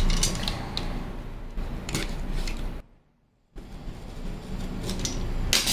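Light clicks and knocks of hands handling and opening the battery-and-charger starter kit, with a drop to near silence for under a second a little before the halfway point.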